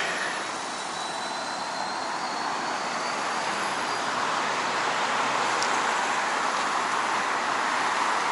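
Steady rushing noise of passing vehicles that slowly grows louder, with a faint high whine that glides upward and then levels off.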